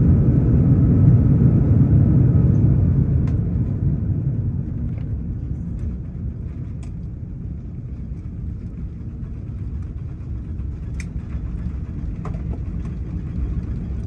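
Airliner cabin noise during the landing rollout: a loud low rumble of the engines and the wheels on the runway, easing off from about five seconds in as the plane slows. A few faint clicks late on.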